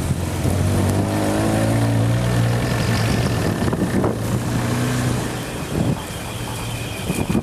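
A motor vehicle's engine running as it goes by, a low hum that grows louder and then fades away.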